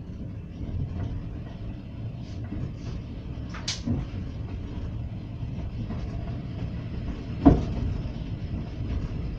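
Passenger train running along the line, a steady low rumble, with a sharp knock a little before halfway and a louder knock near the end.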